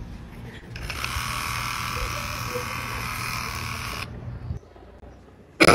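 Electric hair clipper buzzing steadily against a head for about three seconds, starting about a second in and cutting off suddenly.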